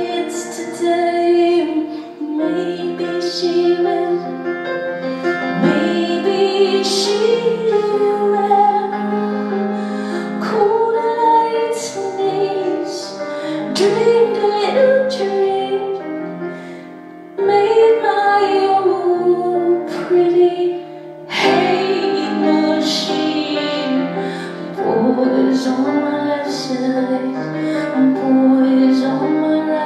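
A song with a woman singing over instrumental backing. The music briefly drops away twice, about 17 and 21 seconds in.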